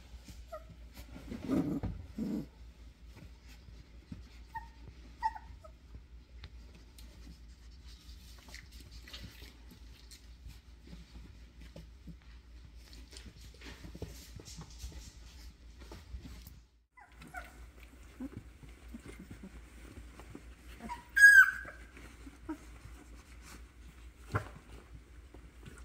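Young Doberman puppies, about two and a half weeks old, giving small scattered squeaks and whimpers while they move about on soft bedding. About 21 seconds in, one puppy lets out a loud, high squeal, the loudest sound here. About two seconds in there is a brief low rumble.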